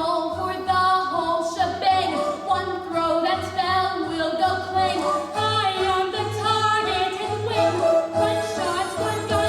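Vocal group singing a cappella: a lead voice over sustained backing harmonies, with a low bass line pulsing underneath in a steady rhythm.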